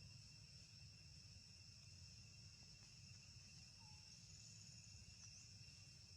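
Faint, steady high-pitched insect chorus over a low background rumble.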